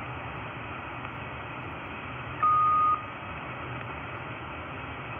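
Shortwave receiver static: a steady hiss from a Belka-DSP receiver in upper-sideband mode, played through a Bose SoundLink Mini II speaker while it is tuned across an empty stretch of the 5.6 MHz band. About halfway through, a single steady beep sounds for about half a second.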